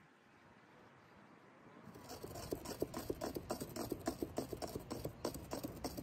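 Metal spoon stirring a wet mixture in a glass bowl, tapping and scraping against the glass in a quick run of clicks, about four a second, starting about two seconds in.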